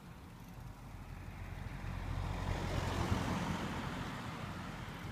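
A car overtaking from behind, its engine and tyre noise swelling to a peak about three seconds in, then fading as it pulls ahead.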